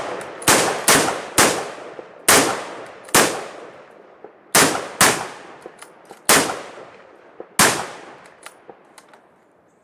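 Three rifles fired together in a rapid volley: about nine loud, unevenly spaced shots, each with a long echoing tail, thinning out over the first eight seconds, then a few fainter cracks near the end.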